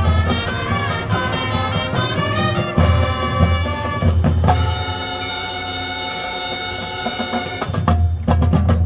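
High school marching band playing, brass over drums. About halfway through the band holds one long chord for about three seconds, then the drums come back in near the end.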